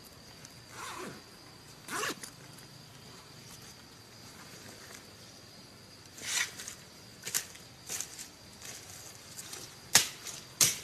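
Bamboo poles knocking as a bamboo ladder is handled and set against a raised bamboo platform: scattered sharp hollow knocks, a couple in the first seconds and a quicker run in the second half, the loudest near the end, over a faint steady high-pitched hum.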